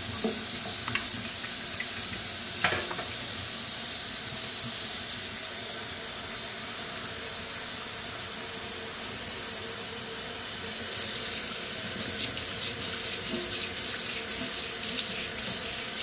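Kitchen tap running steadily into a stainless steel sink full of greens being rinsed, with a single sharp knock about three seconds in. About eleven seconds in the water gets louder and splashier as the stream falls onto the bare steel of the emptied basin.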